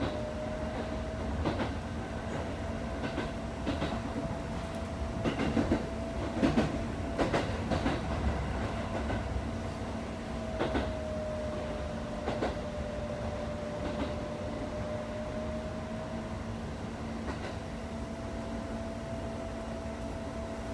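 Cab-area sound of a Chichibu Railway express electric train under way: a steady running hum with a whine that dips a little in pitch and comes back up. The wheels knock irregularly over rail joints and points, most densely about five to eight seconds in.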